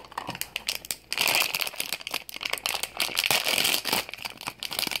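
Foil blind-box bag crinkling and rustling as it is handled and opened, with dense crackling starting about a second in.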